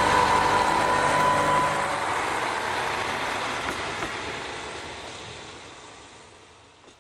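A KiHa 40 diesel railcar running past, loud with a steady high whine for the first couple of seconds, then fading steadily away into the distance.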